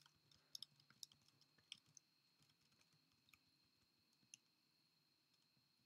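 Near silence with faint, scattered clicks from working a computer's mouse and keys, and a faint steady high whine underneath.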